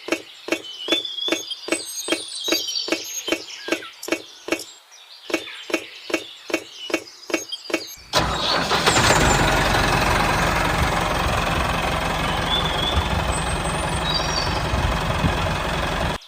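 Evenly spaced knocks, about three a second. About halfway through, a small motor starts and runs steadily and loudly, with a low rumble under a hiss. Faint bird chirps come and go.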